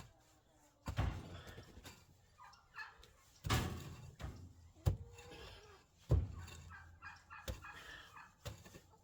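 Poultry calling in the pen, with a shovel knocking and scraping into packed bedding and compost about six times at uneven intervals.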